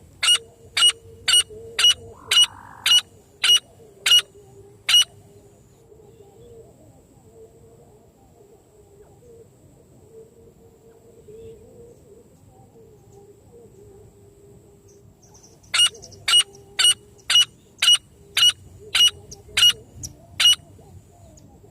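Francolin calls: a run of about nine sharp, high notes, about two a second, then a pause of some ten seconds, then a second run of about ten notes.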